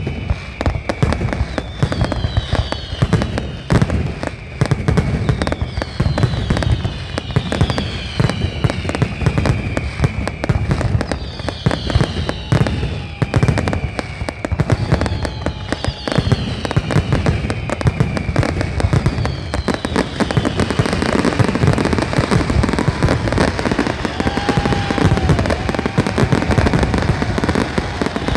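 Fireworks display: a dense, continuous run of bangs and crackling, with high whistles that fall in pitch, one about every two seconds, through the first two-thirds.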